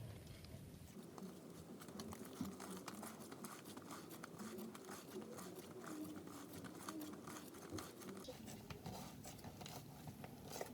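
Faint sticky clicks and crackles of a slime being stretched and folded by hand to work air in for an inflation test.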